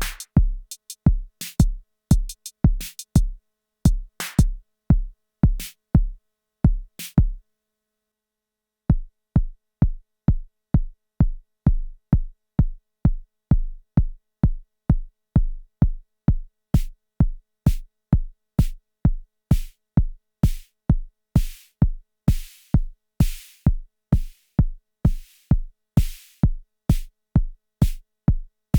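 Arturia DrumBrute Impact analog drum machine playing a steady sequenced beat of deep kick drums and sharp clicks. It stops for about a second and a half some seven seconds in, then starts again. In the second half, noisy hi-hat-like hits come in whose ringing tails grow longer, then shorter again.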